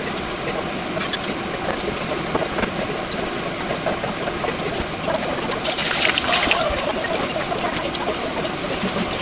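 Hot oil in a deep-frying pot crackling lightly, then a sudden burst of sizzling about six seconds in as a batch of food goes into the oil. It settles into a steady, busy bubbling fry.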